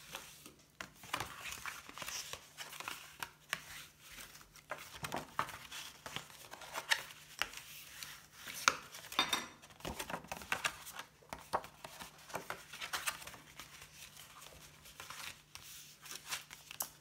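White cardstock being folded along its score lines and creased flat with a bone folder: irregular paper rustling and sliding with scattered light taps and scrapes.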